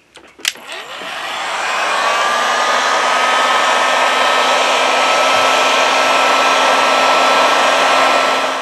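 Heat gun switched on with a few clicks, its fan spinning up with a rising whine that settles into a steady, loud blowing hiss.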